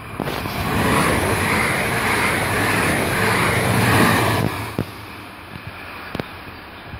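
DB class 442 Talent 2 electric multiple unit passing at speed at close range: a loud rush of wheels on rails and displaced air that builds for about a second and cuts off sharply about four and a half seconds in as the last car goes by, leaving a fainter hiss as the train pulls away.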